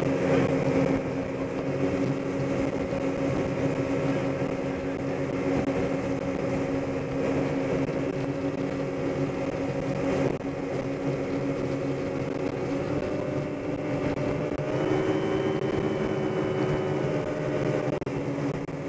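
Motorboat engine running steadily at speed while towing a tube, with the rush of water and wake behind the boat. About two-thirds of the way through, the engine note climbs to a higher pitch and holds there as the boat swings into a turn.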